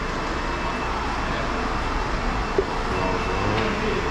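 Steady workshop background noise, with one light knock about two and a half seconds in.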